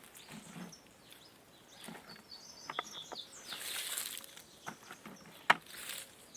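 Wild songbirds chirping sparsely in the countryside. A few sharp clicks cut in, the loudest about five and a half seconds in, along with two short bursts of hissing noise.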